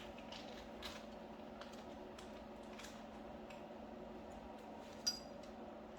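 Small metal valvetrain parts and hand tools handled on an engine cylinder head: light scattered clicks and taps, with one sharp ringing metal clink about five seconds in, over a steady low shop hum.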